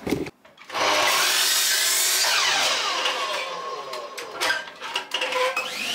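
Mitre saw cutting 4x2 timber into legs: a steady loud whir of the blade in the wood. Its pitch falls as it spins down, then rises again near the end as it starts up for the next cut.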